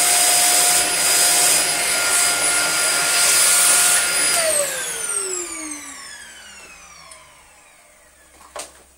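Dyson Small Ball upright vacuum cleaner running with a steady high whine, then switched off about four seconds in, its motor winding down with a falling whine over several seconds. The machine is being tested and still has an air leak somewhere. A couple of light knocks near the end as it is handled.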